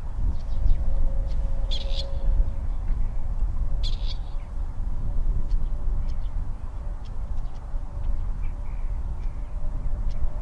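Partridges giving short high calls, the clearest about two seconds and four seconds in, over a steady low rumble.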